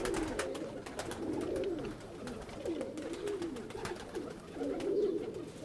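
Domestic pigeons cooing in a loft: several low, warbling coos that rise and fall and overlap, with a few faint clicks.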